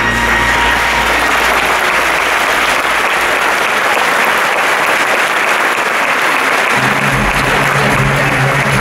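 Theatre audience applauding as the stage goes dark between scenes. About seven seconds in, low steady music chords come in under the applause.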